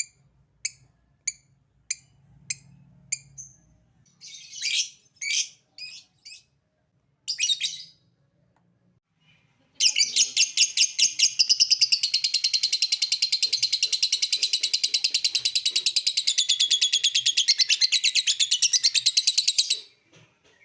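Lovebird calling. It starts with short, sharp single chirps about every half second (the 'ngetik' typing call), gives a few harsher calls, then after a pause breaks into about ten seconds of rapid, unbroken chattering trill (the 'ngekek'). Keepers use this call to provoke other lovebirds into calling.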